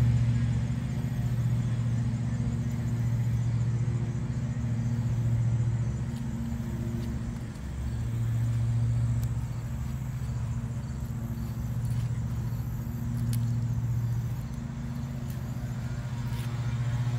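A steady low motor hum that swells and fades every few seconds.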